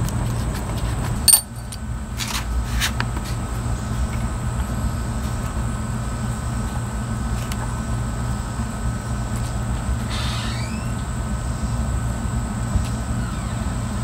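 Steady low hum of a motor running, with a sharp click about a second in.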